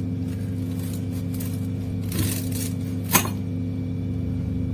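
Kitchen scissors snipping fresh coriander into a steel mixer jar: a short rustling cut about two seconds in, then one sharp snip a second later, over a steady low hum.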